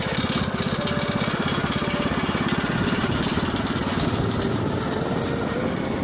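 Motorbike engine running steadily while riding, with an even, rapid pulsing and a constant rush of noise.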